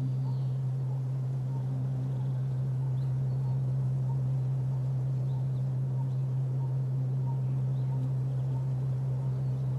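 Ambient musical drone: one steady low tone held throughout, with faint short chirps repeating about every half second above it.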